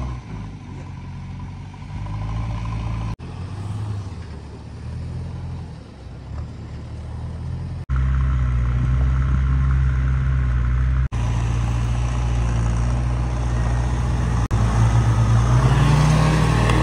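Mahindra Thar 4x4's engine running as it drives through loose sand, revving up near the end. The sound changes abruptly a few times where clips are joined.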